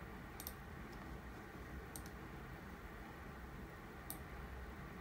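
Faint clicks of a computer mouse button, five or six in all, some in close pairs, over a steady low hum.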